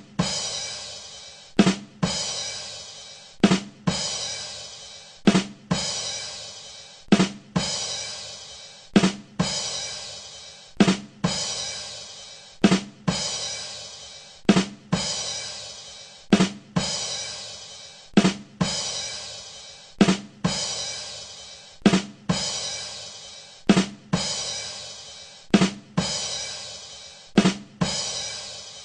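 The 'ba dum tss' rimshot sting on a drum kit, played over and over: two quick drum hits, then a cymbal crash that rings out and fades. It repeats about every two seconds, some fifteen times.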